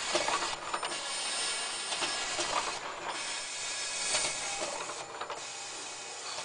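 Pyramid tea bag packing machine running: a dense, high-pitched mechanical clatter with clicks, dropping off briefly about every two seconds in a regular cycle.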